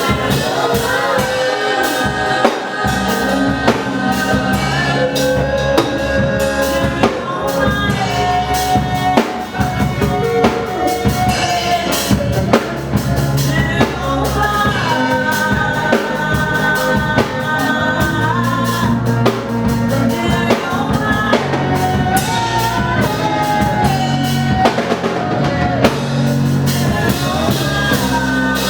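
Gospel praise song: a singing voice over a steady drum kit beat and bass.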